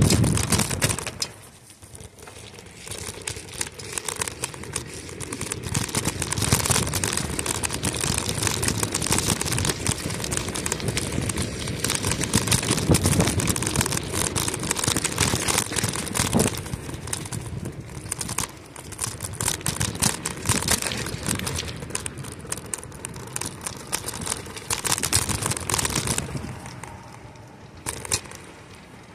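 Bicycle tyres rolling over a paved trail strewn with wet fallen leaves, giving a dense crackling rustle. It dips briefly about two seconds in and goes quieter near the end.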